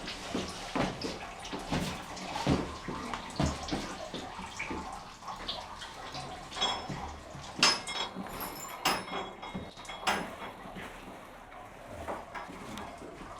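Hand-worked olive press being pressed down, giving irregular knocks and clanks over a steady background of running liquid.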